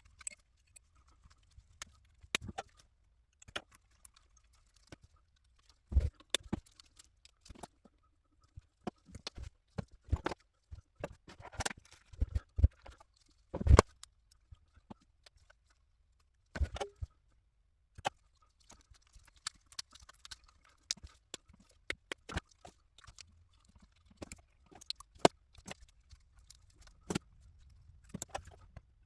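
Scattered clicks, taps and knocks of hand tools and parts being handled while new filter capacitors are fitted into an old tube radio chassis, with louder knocks about six and fourteen seconds in.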